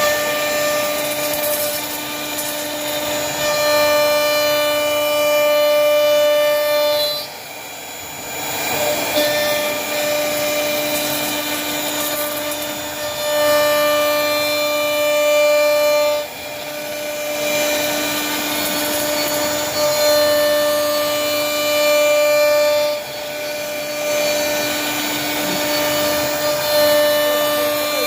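CNC router spindle whining at a steady high pitch while its bit cuts flutes into a wooden door panel, with a rough cutting hiss under the whine. The cutting sound drops off briefly three times, about 7, 16 and 23 seconds in, then picks up again.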